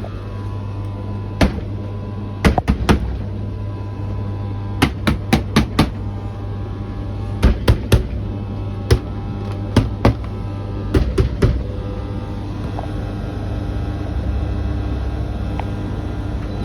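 Beko tumble dryer running with a steady motor hum, broken by irregular sharp knocks, often two to four in quick succession: the strange noise the dryer is making.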